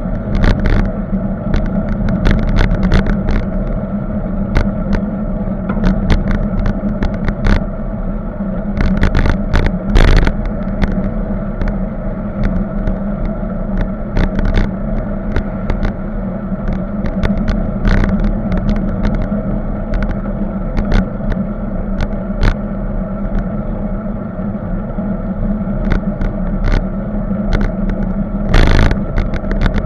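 Steady riding noise picked up by a camera fixed to a moving bicycle: a constant hum and road rumble with frequent sharp rattles and clicks as the bike and mount jolt over the road surface.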